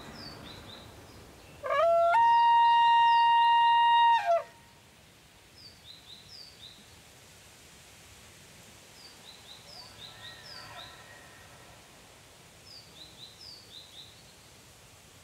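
Bull elk bugling: one loud whistled call about two seconds in that rises, holds a steady high note for about two seconds, then falls off. Faint short bird chirps come in pairs throughout, with a much fainter call about ten seconds in.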